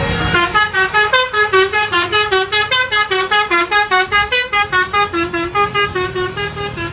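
Basuri-type telolet bus horn playing a fast melody of short, pitched honking notes, about six a second, hopping up and down in pitch.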